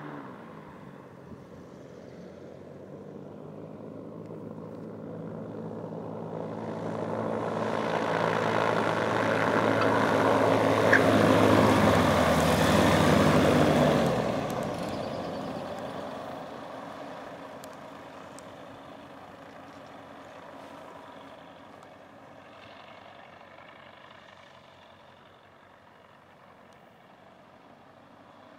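Rotax 912 four-cylinder engine and three-bladed pusher propeller of an MSquared Breese 2 XD ultralight aircraft. It grows steadily louder as the plane comes along the runway, passes close by about 14 seconds in with a drop in pitch, then fades as it moves away.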